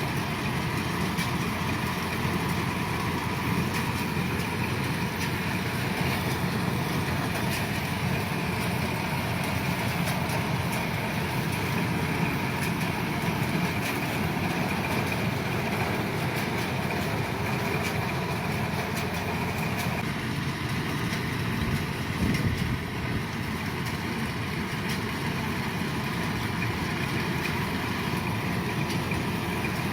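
Kubota DC-105 combine harvester running steadily, its engine and threshing machinery giving a continuous low drone with a brief louder jolt about two-thirds of the way through.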